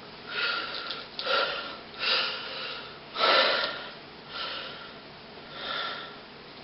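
Six short breathy sniffing sounds, spaced about a second apart.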